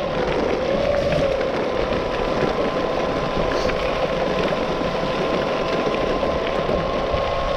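BajaBoard S2 Atrax electric skateboard's motors whining at a steady pitch under load while climbing a dirt trail, over the rumble of its 8-inch all-terrain wheels on gravel.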